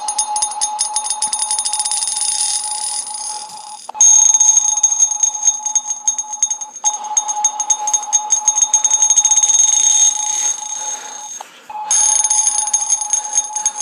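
An alarm ringing loudly with a fast, even trill, breaking off briefly about four seconds in and again near eleven and a half seconds.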